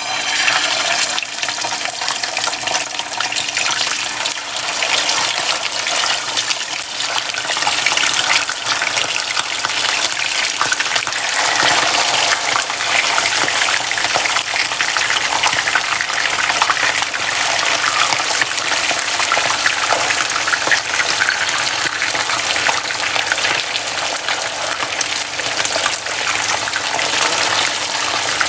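Whole mackerel-like sea fish frying in hot oil in a nonstick pan: a loud sizzle with fine crackling that starts suddenly as the first fish goes in and keeps on steadily while more fish are laid in one by one with tongs.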